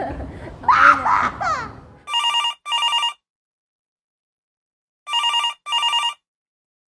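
A group's voices and laughter for the first two seconds, then a telephone ringing: two double rings, each a pair of short electronic-sounding bursts, the second pair about three seconds after the first.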